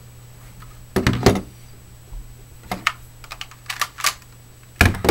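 Clear plastic Nerf Recon CS-6 accessories being handled and knocked on a tabletop: a series of sharp plastic clicks and knocks, loudest in a cluster about a second in and again near the end.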